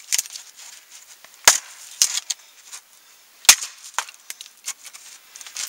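Axe blows chopping into a thin standing dead pine pole. The two hardest strikes fall about two seconds apart, with lighter knocks between them.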